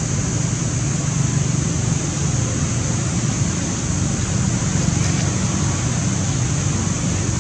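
Steady rumbling background noise with a constant high hiss over it. No separate sound stands out.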